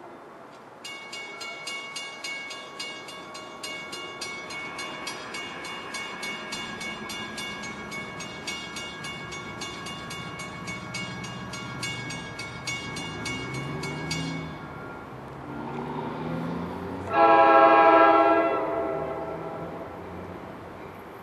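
A warning bell rings in a rapid, even rhythm for about thirteen seconds while the low rumble of an approaching NJ Transit train builds. About seventeen seconds in, the train's horn sounds one loud, long blast, the loudest sound here, which then fades.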